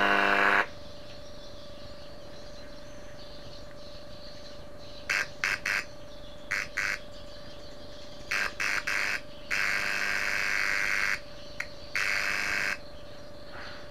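A small test speaker driven by a salvaged power amplifier board buzzes in short, irregular bursts, the longest about a second, as a screwdriver tip touches the board. This is the usual hum-injection check that the amplifier passes signal. A faint steady whine runs underneath.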